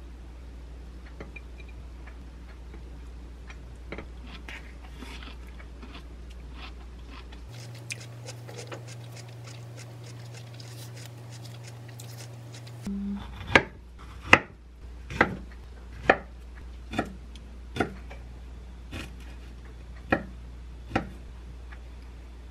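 Kitchen knife chopping roasted sweet potato on a wooden cutting board: about nine sharp knocks, a little under a second apart, in the second half. Before that, only faint clicks of food and a glass bowl being handled over a low hum.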